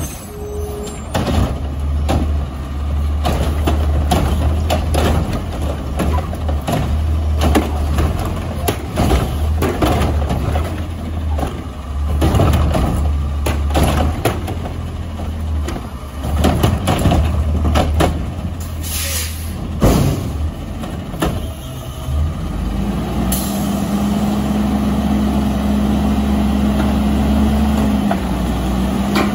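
Front-loader garbage truck with a Curotto-Can-style cart tipper on its forks, diesel engine running. The arm grabs and tips a plastic wheeled cart into the front can with many clanks and knocks. From about 23 s a steady higher engine-and-hydraulic hum sets in as the forks lift the can over the cab.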